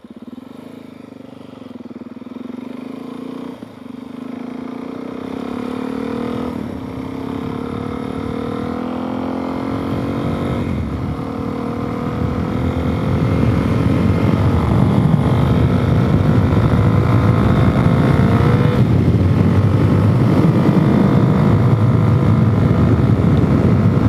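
Suzuki DRZ400S's single-cylinder four-stroke engine pulling up through the gears, its pitch rising in long climbs with upshifts about four, eleven and nineteen seconds in. The engine runs on a freshly rejetted carburettor. Wind noise on the microphone grows louder as the speed builds.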